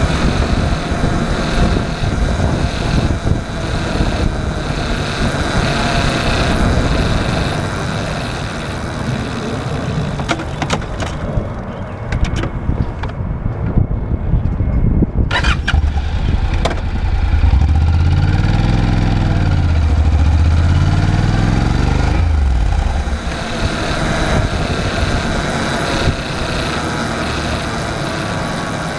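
Honda NC750X parallel-twin motorcycle engine running with heavy noise on the microphone, one sharp click about halfway through. In the latter part the engine revs rise and fall twice.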